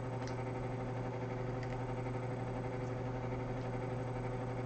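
Steady low hum of room tone, even throughout, with a few faint clicks.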